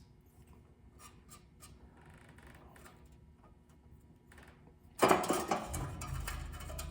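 Faint clicks and light rubbing of small parts being handled. About five seconds in, a sudden much louder clatter and rustle, with a low hum underneath.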